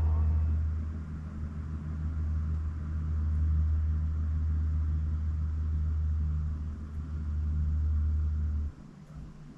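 A deep, steady low rumble or drone that cuts off abruptly near the end.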